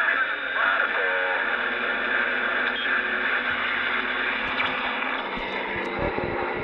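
Galaxy Saturn CB transceiver receiving in AM: steady radio hiss and static from its speaker, with short warbling whistles of off-tune signals in the first second or so as the dial is turned. A few low thumps near the end.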